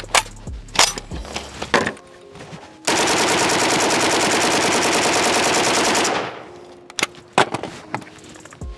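Pioneer Arms 5.56 AK rifle firing one long fully automatic burst of about thirty rounds, lasting about three seconds and starting about three seconds in. Before and after the burst come a few sharp clicks and clacks as the rifle is handled and a magazine is seated.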